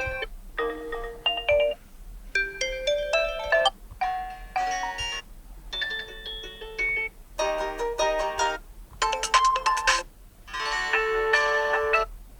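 Oppo A54s smartphone playing its built-in ringtones: short melodic chime-like phrases with brief silent gaps between them.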